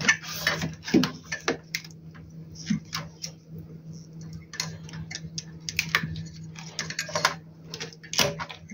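Irregular small clicks and rattles of cable connectors and wiring being pulled off an inverter's MPPT circuit board, over a steady low hum.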